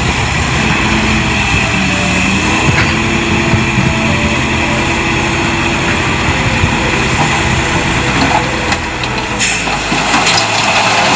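Heavy diesel earthmoving machinery running steadily under load, with a brief louder rush of noise near the end.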